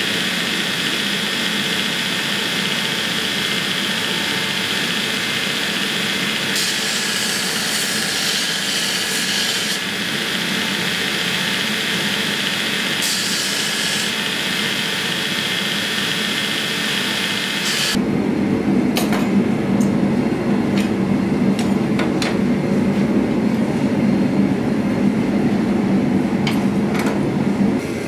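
Belt grinder running steadily, with a metal piece pressed to the belt twice for a few seconds, adding a harsh grinding hiss. About two-thirds of the way through it cuts off abruptly to a louder, lower steady noise with scattered sharp clicks.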